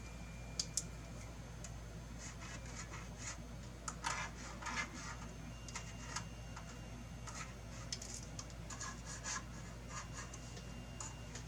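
Pen scratching as hole positions are marked, with scattered light clicks of parts being handled and two sharp clicks less than a second in. A steady low hum sits underneath.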